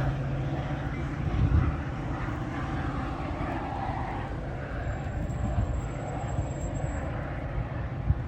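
Departing Metra commuter train pulling away: a steady low rumble that swells briefly about a second and a half in.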